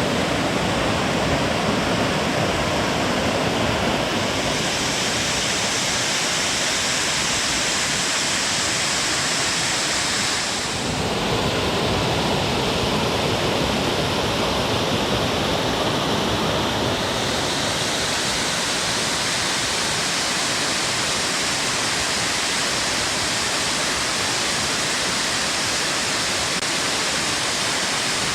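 Waterfall's falling water making a steady, loud rush. The sound shifts in tone about four seconds in, dips briefly near eleven seconds and shifts again a little before the middle, as between different spots at the falls.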